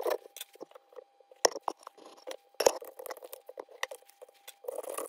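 Small hacksaw cutting into the plastic case of a Citroën XM ABS relay along its seam: irregular short scraping strokes and clicks, then a denser stretch of sawing at the end.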